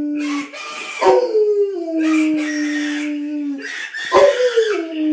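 Dog howling in long drawn-out howls, each starting higher, sliding down and then holding a low steady note. One howl ends early, a full one starts about a second in, and another begins near the end. The dog is howling in response to a phone ringing.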